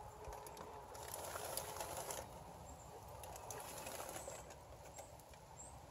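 Quiet sizzling and crackling of venison burger patties cooking on a tinfoil tray over a gas grill, with a fuller rustle of foil and sizzle for about a second as the tray is turned.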